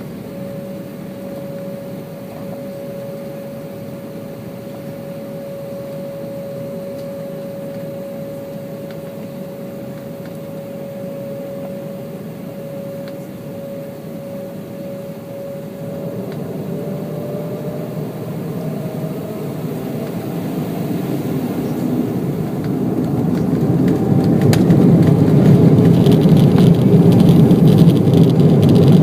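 Embraer 190's General Electric CF34 turbofan engines running with a steady whine, then spooling up to takeoff power from about halfway through. The whine rises in pitch and the rumble grows much louder, with rattling near the end.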